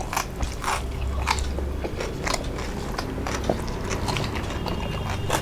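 Close-up chewing and wet mouth smacking of someone eating fish paturi with rice, with irregular short clicks.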